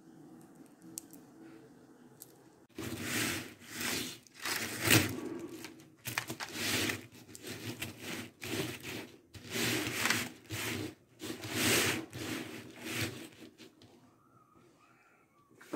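Rustling, crinkling strokes about once a second as hands spread and smooth a coral-bead netting over a backing sheet, starting about three seconds in and dying away near the end.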